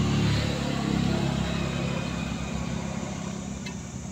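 A road vehicle's engine running past, loudest about the first second in and slowly fading over the next few seconds.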